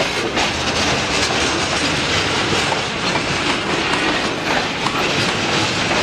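Freight train of flatcars loaded with pulpwood logs rolling past over a road crossing: a steady rolling noise with irregular clacks from the wheels passing over rail joints.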